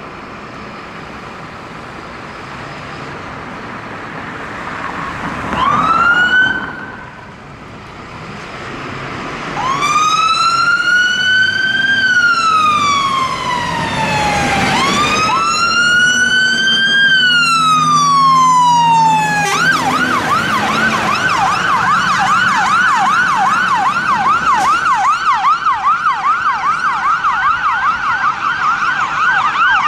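Fire engine siren over truck engine noise: a brief rising whoop about six seconds in, then a slow wail rising and falling twice, switching about twenty seconds in to a fast yelp of about three cycles a second.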